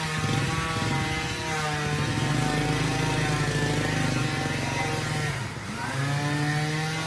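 A small electric motor running with a steady hum. Its pitch sags and then climbs back up about five and a half seconds in.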